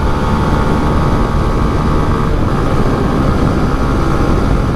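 Honda Twister motorcycle's single-cylinder engine running at a steady cruising speed, under heavy wind rush on the microphone.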